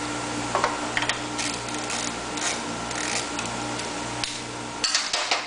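Socket ratchet clicking in short bursts as a motor mount bolt is tightened, over a steady background hum.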